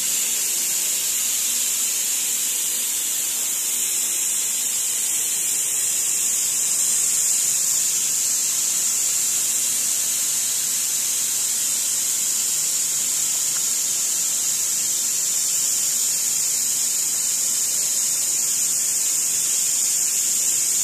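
A steady high-pitched hiss, level throughout.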